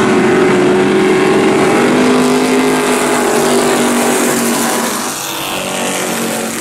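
Pure stock dirt-track race cars racing around the oval, several engines heard at once in a steady, loud drone. Two cars run along the front stretch by the grandstand about four seconds in, and the sound eases slightly just after.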